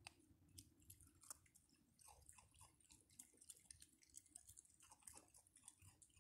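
Raccoons eating at close range: faint, quick chewing and crunching of dry food with many small clicks.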